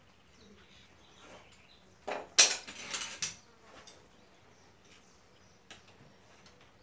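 Farrier's metal tools clinking and scraping, one burst of several sharp strokes lasting about a second, starting about two seconds in.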